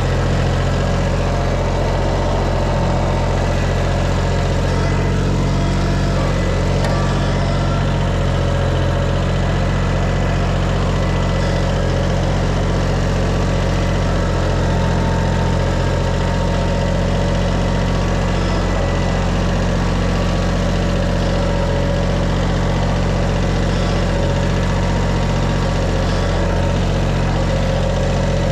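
Engine running steadily at one constant speed, with a deep, even hum and no change in pitch.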